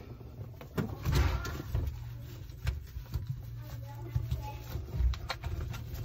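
Scattered knocks and rubbing as a wet cloth wipes out a dishwasher's plastic filter housing and the parts around it are handled.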